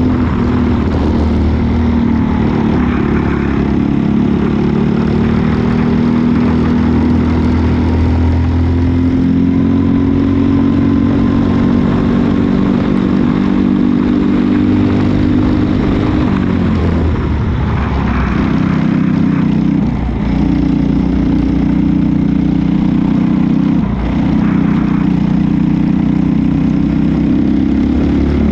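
Briggs & Stratton four-stroke single-cylinder kart engine running hard at high revs, heard from on board the kart. Its pitch drops and climbs back a few times as the driver lifts off for corners and accelerates out again.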